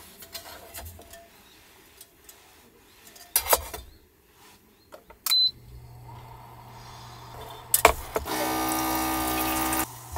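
Knocks and clicks of cookware being handled, a single short high beep about five seconds in, then a low steady electrical hum, and near the end a louder buzzing motor-like whine for about a second and a half.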